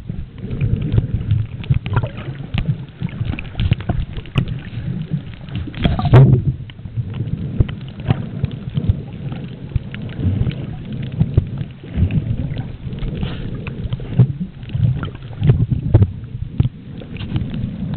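Water moving around a camera held underwater: a muffled low rumble with many small crackles and knocks, rising and falling unevenly, and one louder sound falling in pitch about six seconds in.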